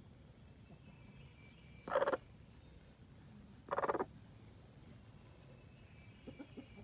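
A hen on a nest gives two short calls about two seconds apart while being stroked, the first about two seconds in.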